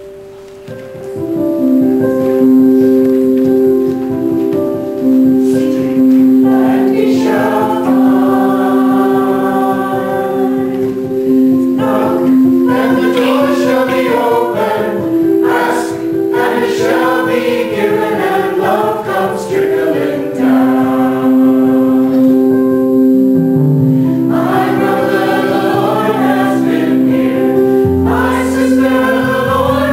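A hymn: held keyboard chords, then a choir singing over them from about seven seconds in.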